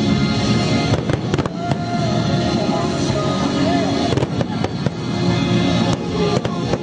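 Fireworks going off in scattered sharp bangs over loud music playing throughout.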